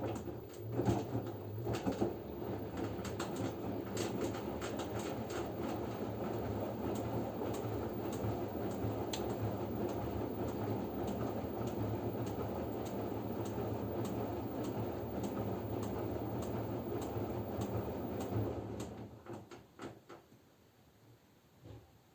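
LG F10B9LD front-loading washing machine in its wash phase: the drum turns and the laundry and water slosh and tumble, with many small knocks. The tumbling stops about nineteen seconds in.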